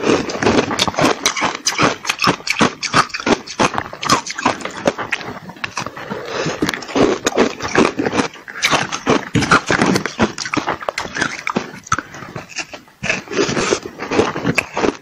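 A frozen block of green-coloured ice being bitten and chewed: a dense, irregular run of sharp crunches and crackles.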